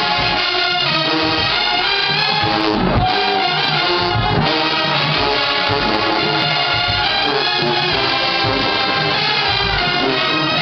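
A marching band's brass section playing a tune together: trumpets, trombones and sousaphones, loud and steady throughout.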